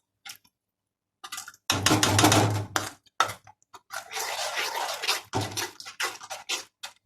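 A little water poured into a pan of frying chilli-sauce masala, then a spatula scraping and stirring it in short strokes.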